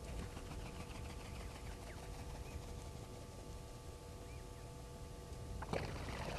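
Faint outdoor ambience: a low rumble and a steady hum under scattered short, high bird chirps and calls, busiest in the first couple of seconds. A brief, louder noisy burst comes near the end.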